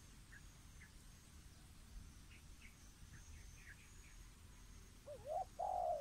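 Faint, brief high chirps of small birds, then near the end a louder dove coo: two low rising-and-falling notes followed by a rough, purring note.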